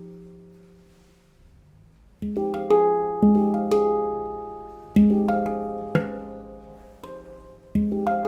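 L'Atelier de Maru F Equinox 10 handpan (F3 Ding; Ab3 C4 Db4 Eb4 F4 G4 Ab4 C5 F5) ringing out and fading to a near pause, then struck again about two seconds in: a run of notes, each ringing on and overlapping the next.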